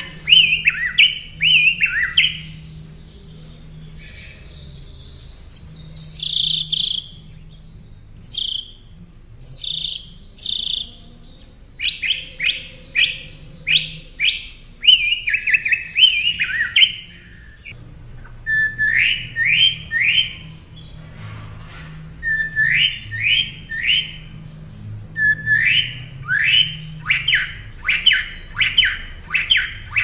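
Northern mockingbird singing a varied song. Each note type is repeated several times before it switches: falling whistles, then a few loud harsh notes, then rising notes in sets of three, and a fast run of notes near the end.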